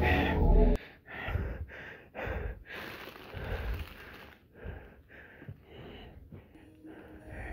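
Background music cuts off about a second in, then a person breathes and sniffs in a run of short, irregular bursts close to the microphone.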